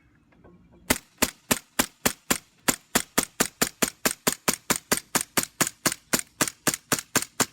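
CO2 gas blowback airsoft pistol fired on semi-automatic: about two dozen sharp shots in quick, even succession, three to four a second, beginning about a second in. Each shot is a crack of gas with the blowback slide cycling.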